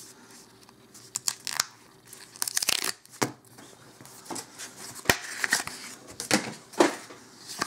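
Foil wrapper of a trading-card booster pack being torn open by hand, in a string of short rips and crinkles.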